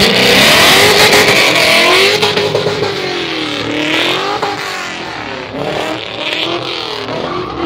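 Red BMW E36 drift car launching hard with a loud burst of wheelspin and tyre noise, the engine revving high. Its engine note then rises and falls over and over as it drifts away, growing fainter.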